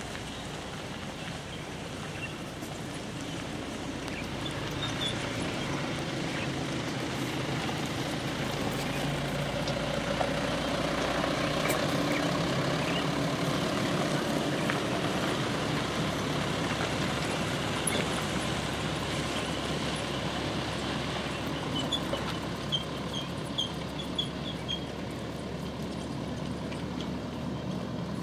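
A motor vehicle running nearby, slowly growing louder and then fading away over many seconds. A few short high chirps come near the end.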